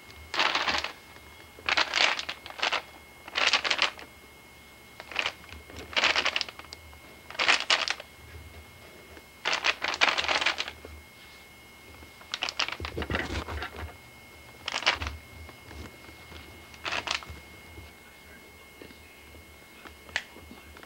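A cat clawing and scuffling on a rug: about a dozen short scratchy rustles, one every second or two, over a faint steady high whine.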